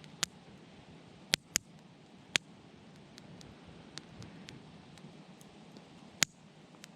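Wood fire crackling: a soft hiss with irregular sharp pops, the loudest coming about a quarter-second in, three between one and a half and two and a half seconds in, and one near the end, plus fainter ticks between them.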